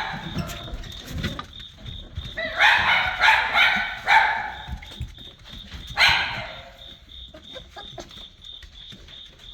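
Black and tan coonhound puppies yipping. There is a cluster of cries about three seconds in and another about six seconds in.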